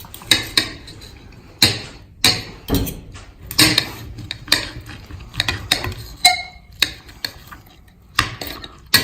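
Cutlery clinking and scraping against a plate, an irregular series of sharp clicks and knocks, with one short ringing clink about six seconds in.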